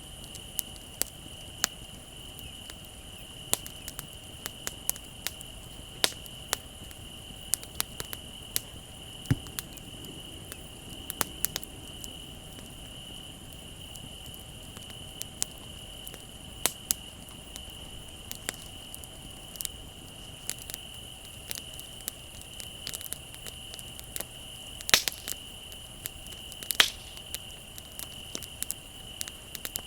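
Wood fire crackling, with irregular sharp pops scattered throughout and two louder ones near the end, over the steady high trilling of crickets.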